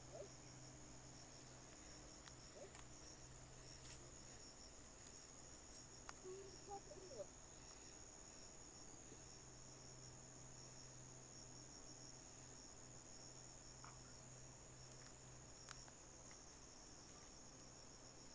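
Faint, steady high-pitched chorus of insects, with a few faint ticks.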